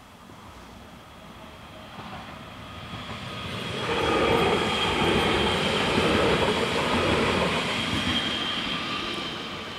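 Bombardier Talent 2 electric multiple unit passing by. Its running and wheel noise builds over a few seconds, stays loud for about four seconds as it goes past, then fades away, with a steady high whine running through it.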